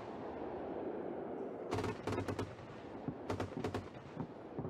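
Gepard's twin 35 mm autocannons firing several short bursts of rapid shots, the first starting nearly two seconds in, over a low rushing noise.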